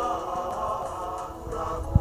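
Choir singing slow, held chords, with a few soft low thumps underneath.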